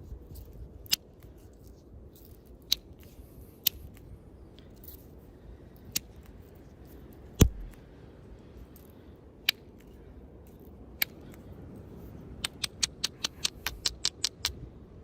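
Flint knapping a hornstone blade: sharp stone clicks as flakes are taken off the edge, one at a time every second or two, with one heavier strike about halfway through. Near the end comes a quick run of lighter ticks, about three or four a second.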